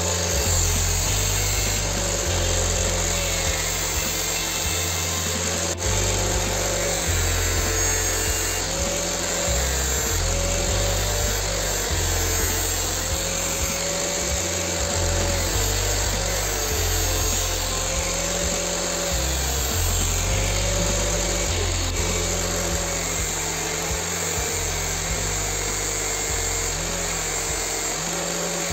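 Background music: a bass line stepping between notes about once a second under an arching melody.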